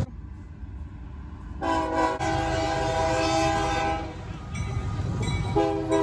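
Diesel freight locomotive's air horn sounding a chord of several notes together: one long blast begins a couple of seconds in and lasts about two and a half seconds, and a second blast starts near the end. A low rumble from the passing train runs underneath.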